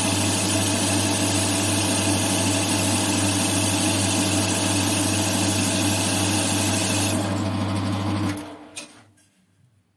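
CJM280 benchtop metal lathe running with a steady hum and a high hiss; the hiss drops away about seven seconds in, then the lathe is switched off and stops about a second later, leaving near silence.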